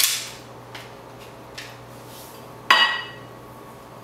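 Kitchen utensils knocking against dishes: a sharp knock at the start, a couple of light taps, then about three seconds in a sharp clink of a metal utensil against a plate that rings briefly.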